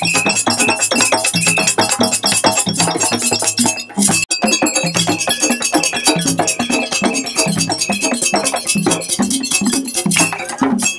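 Live West African drumming: djembes played fast and dense, with a steady high ringing tone held over the beat. The playing breaks off briefly about four seconds in, then carries on.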